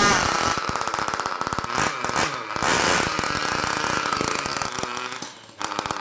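Small single-cylinder model combustion engine of an RC pulling truck idling with a fast, rattling putter. It falters and turns uneven near the end.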